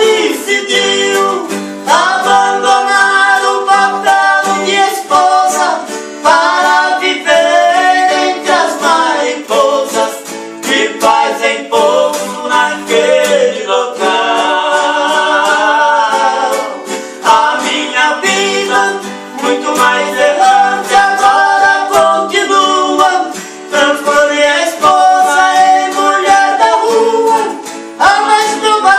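Sertanejo duo singing in sung phrases with short breaks between them, over plucked steel-string guitar accompaniment.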